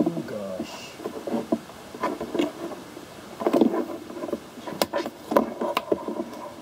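Cables and small objects being pulled and handled among equipment on a shelf: irregular rustling and light knocks, with three sharp clicks in the second half.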